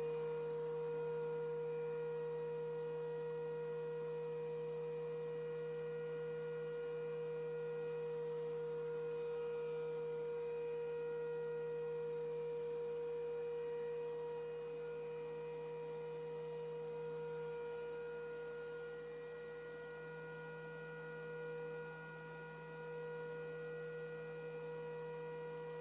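DeWalt benchtop thickness planer running at full speed, its motor and cutter head giving a steady whine.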